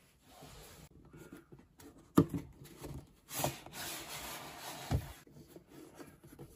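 A cardboard box being handled and a black presentation box slid out of its white cardboard sleeve: a sharp knock about two seconds in, then a rubbing, scraping slide, ending in a thump about five seconds in.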